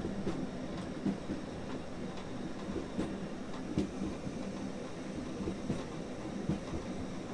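Carriage of the Rasender Roland, Rügen's narrow-gauge steam railway, rolling along with a steady rumble and irregular knocks as the wheels cross rail joints.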